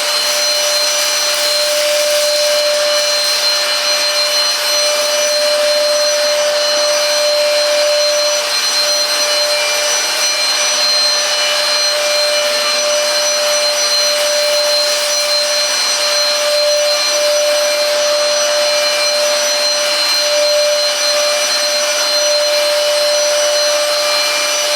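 Silvercrest Cordless Cyclone Aqua handheld vacuum cleaner running steadily with a high motor whine, vacuuming and wet-mopping a floor at the same time.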